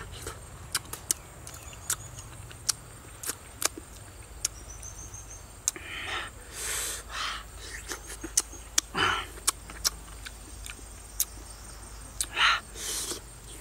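Close-up mouth sounds of eating soft, juicy langsat fruit: sharp wet smacks and clicks of chewing, with a few longer breathy slurps.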